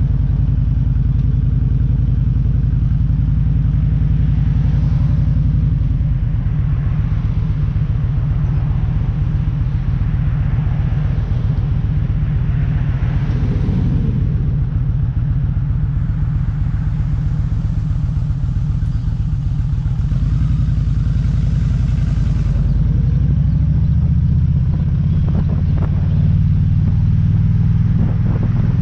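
Motorcycle engine running steadily while riding along a street, with a low pulsing rumble and road and wind noise over it; the engine note shifts about three quarters of the way through.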